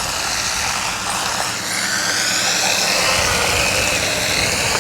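Small electric RC car's motor whining as it is driven, the whine sweeping up and down in pitch with the throttle, over the hiss of small tyres on pavement.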